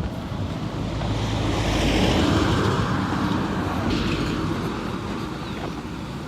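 A road vehicle passing close by: its tyre and engine noise swells to a peak about two seconds in, then slowly fades.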